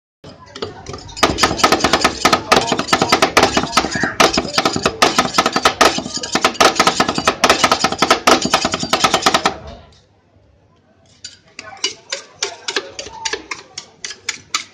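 Two metal spatulas chopping rapidly on a frozen steel plate, a fast steady clatter of scraping strikes as ice cream is mixed and flattened for Thai rolled ice cream. The chopping stops for about a second near the middle, then resumes more quietly.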